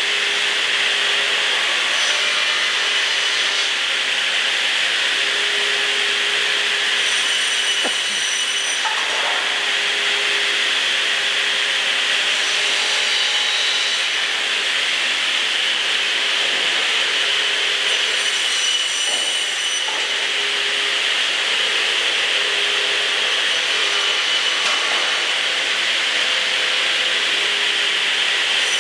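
Through-feed cross-cut trimming machine running, its saw units spinning in a steady, loud hiss with a few faint knocks.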